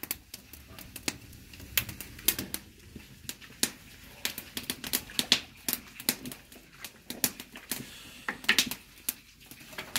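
Wood fire crackling under a cooking pot: irregular sharp snaps and pops, several a second.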